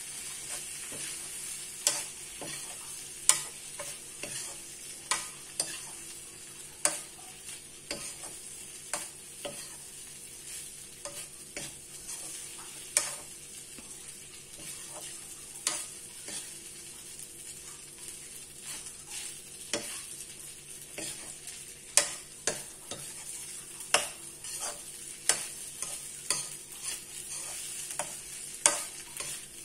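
Rice stir-frying in a wok: a steady sizzle, with a ladle and spatula scraping and knocking against the wok every second or two.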